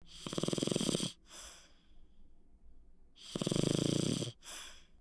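Kitten breathing noisily: two long, finely pulsing breaths about three seconds apart, each followed by a shorter, softer breath.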